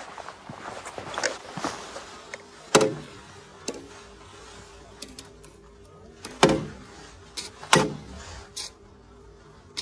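Shuffling footsteps, then sharp knocks on a wooden step: three loud ones with a few lighter taps between them. A freshly caught garfish is being struck against the wood to kill it.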